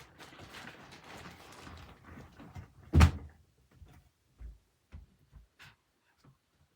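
Rustling, then one loud thump about three seconds in, followed by a few soft knocks.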